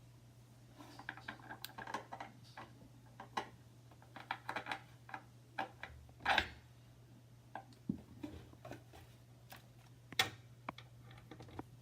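Scattered light clicks and taps as a cabinet handle and its screws are handled and fitted to the drilled holes, with a sharper knock about six seconds in and another about ten seconds in. A steady low hum runs underneath.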